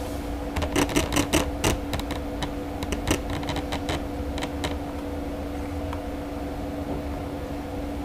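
A steady machine hum with a held low tone, overlaid by a run of irregular sharp clicks and taps, densest about a second in and thinning out by around four and a half seconds.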